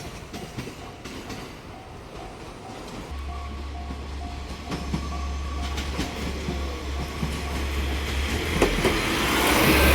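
Japanese level-crossing warning bell ringing in a steady repeating pattern while a train approaches, the rumble growing louder. Near the end the train reaches the crossing, with wheels clattering over the rails and a thin squeal.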